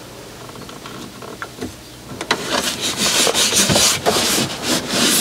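Hands rubbing and pressing a self-adhesive magnetic pad onto a cupboard surface to stick it down: a scraping, rubbing noise with small clicks, growing louder about two seconds in.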